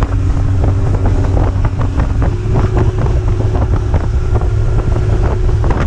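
Boat motor running steadily, its hum shifting slightly about two seconds in, under heavy wind buffeting on the microphone.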